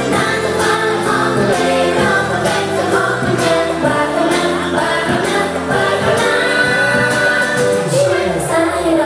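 A song with singing voices and a steady beat, played through a stage sound system.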